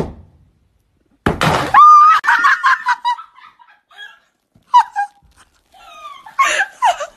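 Champagne cork popping with a sharp bang, then after about a second of quiet a loud noisy burst that runs into a long scream, followed by shorter cries and yells.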